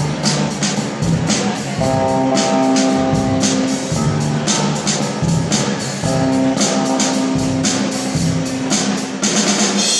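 Live amateur rock band playing an instrumental passage: a drum kit keeps a steady beat with cymbals while electric guitars play a repeating chord riff through amplifiers.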